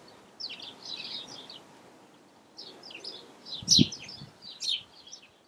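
Small songbirds singing: several quick runs of high chirping notes over a faint background hiss, with one brief low thud about four seconds in.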